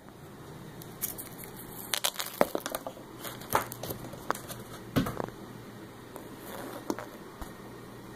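Irregular light taps, clicks and scratches of small hard objects on a desk and notebook as a cat bats at a pencil. They cluster between about two and five seconds in, with scattered ticks on either side.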